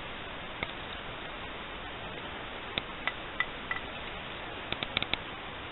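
Small, sharp clicks and ticks over a steady background hiss: one early click, a few spaced ones in the middle, and a quick run of about five near the end.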